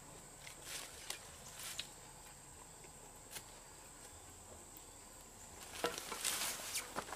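Footsteps and rustling on dry leaves and undergrowth: a few soft separate crunches, then denser, louder rustling near the end. A faint steady high-pitched whine sits underneath.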